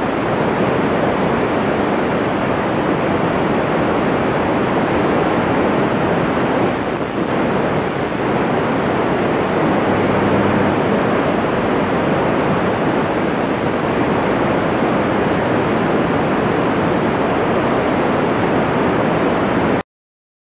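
Steady hiss of a 2-metre FM amateur radio receiver on 145.000 MHz, squelch open with no one transmitting, cutting off suddenly just before the end.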